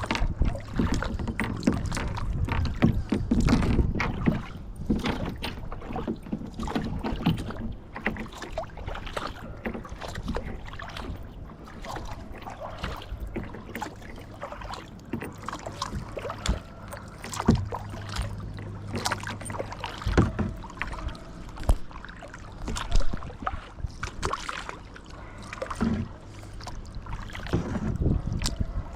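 Kayak paddling: the paddle blades dip and splash in the water, with irregular sharp knocks and clicks throughout and a low rumble strongest in the first few seconds.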